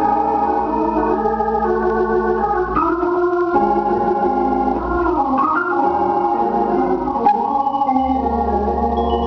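Hammond B-3 organ playing held chords that change every second or two, with both hands moving over the keys. A deep bass note comes in near the end.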